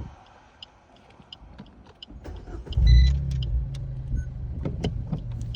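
Cabin sound of a Suzuki Swift Sport ZC33S on the move: intermittent sharp clicks and ticks over a low drone. This is the kind of noise the owner is recording as an abnormal noise while driving. About three seconds in, a low engine and road rumble swells and then holds steady under the continuing clicks.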